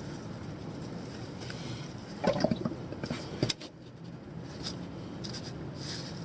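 A short clatter of knocks and a scrape about two seconds in, then a single sharp click, over a steady low background noise.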